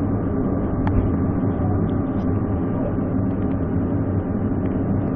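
Glacier Express train running along metre-gauge track: a steady rumble of wheels on rails, with one sharp click about a second in.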